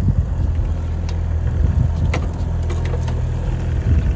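Boat engine running steadily, a low hum, with a few light clicks and knocks on top.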